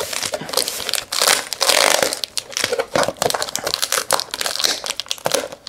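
Shiny trading card pack wrappers crinkling and crackling in a hand as the packs are pulled free of the cardboard box they are stuck to, a rapid run of small crackles with no steady rhythm.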